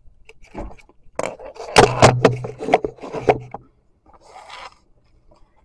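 Handling noise as the camera is moved and set down: knocks, rubbing and scraping against a hard surface close to the microphone, loudest about two seconds in, then a brief softer scuffle a little after four seconds.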